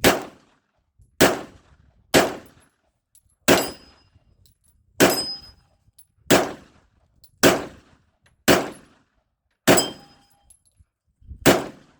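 .45 ACP pistol fired ten times in a steady string, about one shot a second with a longer pause before the last. Several shots are followed by a faint ring of steel targets being hit.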